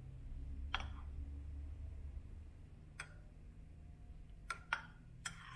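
Metal teaspoon clinking against a ceramic espresso cup while stirring: five light clinks, three of them close together near the end, over a faint low hum.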